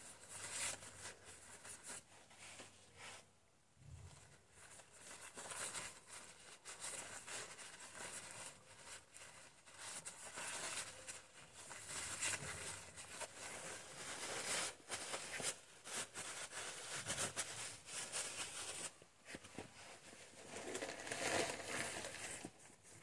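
Cloth rag rubbing and wiping over a car's rear wheel hub, spreading copper grease on the hub face, in faint, irregular scratchy strokes.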